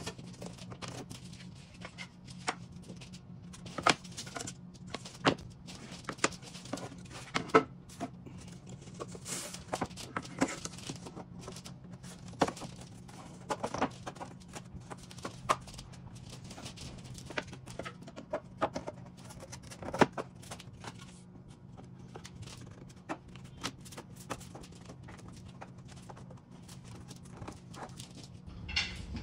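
Pieces of a wooden cabinet door being set down and knocked together on a metal saw table, giving irregular sharp knocks and clacks. A steady low hum runs underneath.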